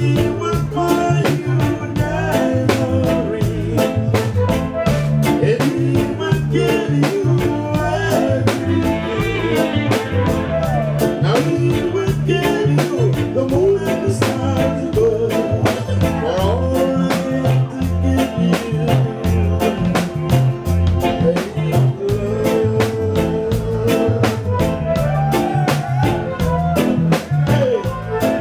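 Live reggae band playing over a steady drum beat and bass, with a vocal trio singing into microphones.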